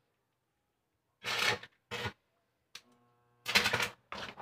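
Arc welding on a square-tube steel frame: short bursts of sizzling crackle as the arc is struck, three times, the last the longest and loudest, with a brief low hum just before it.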